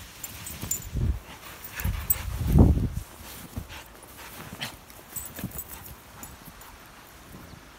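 A dog making noises close by as it plays in the snow, loudest about two and a half seconds in, with short crunching steps in snow throughout.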